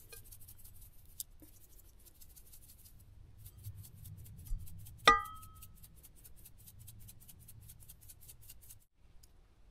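Spices shaken from a plastic multi-spice shaker into a cooking pot: a light rattle, about five shakes a second, with a short pause near three seconds. About five seconds in there is a single ringing clink.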